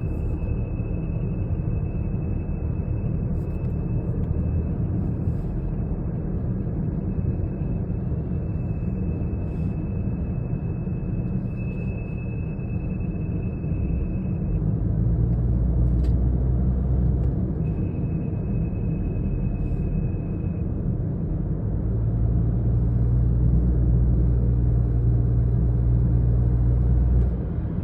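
Toyota Corolla 1.5's steady low rumble with a thin, high-pitched whine over it. The whine is heard for about the first half, stops, then comes back for a few seconds. The whine is the annoying noise.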